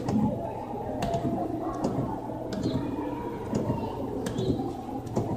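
Scattered sharp plastic clicks and taps from the buttons and steering wheel of a coin-operated kiddie ride, at irregular intervals over a steady background murmur.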